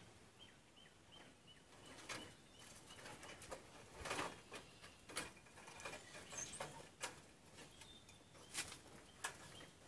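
Wire cutters working at a thin steel piece of a toaster's toast rack, bending and cutting it: faint scattered clicks and scrapes of metal on metal, a few sharper ticks now and then.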